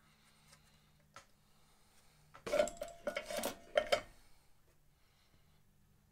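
A removed circuit board and its hardware set down on a wooden workbench: a short burst of clatter and clinks about halfway through, with a brief metallic ring.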